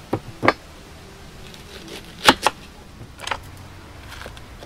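About six sharp knocks and taps of a leek and a kitchen knife being handled on a wooden table, the loudest a little past the middle, ending as the knife starts into the leek.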